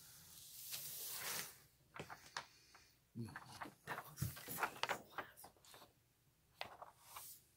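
Rustling and crinkling of a large paper sheet and a plastic-covered canvas as they are handled and laid flat, with a couple of soft thuds about three and four seconds in.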